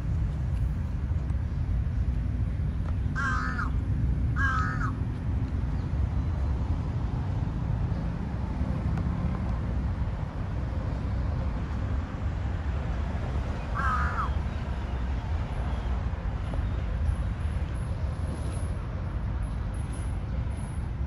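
A crow cawing: two short caws about a second apart, then one more about ten seconds later, over a steady low rumble.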